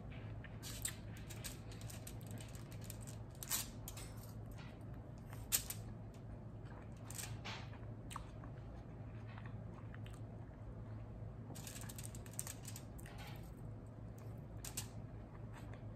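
Close-up chewing and biting of a fried-shell potato taco: scattered soft crunches and mouth clicks, the sharpest a few seconds in. A steady low hum lies underneath.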